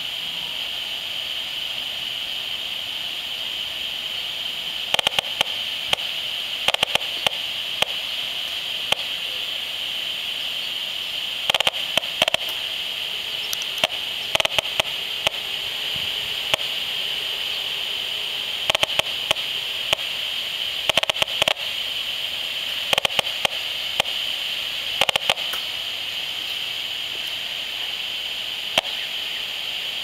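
HF35C RF analyzer's loudspeaker crackling in short bursts of clicks at irregular intervals over a steady high hiss: the audio rendering of a GE smart meter's pulsed radio transmissions.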